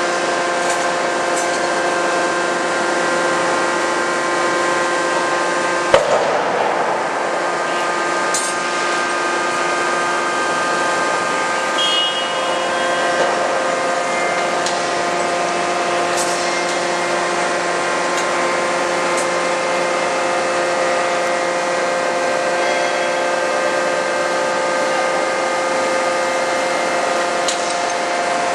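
Steady drone of a CNC hydraulic die forging hammer's hydraulic system, holding several fixed tones. One sharp blow about six seconds in is followed by a few light clanks.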